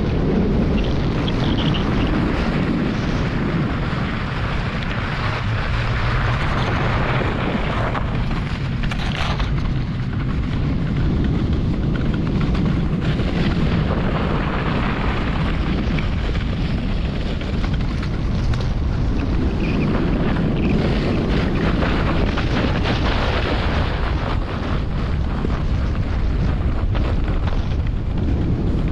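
A German Luge 115 sled running down a snow-covered toboggan run at speed: a steady, loud rushing rumble of the runners on packed snow, mixed with wind over the microphone.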